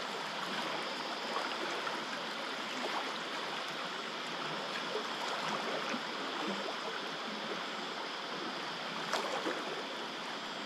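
Fast-flowing, muddy floodwater of a swollen river rushing past the bank in a steady, even rush.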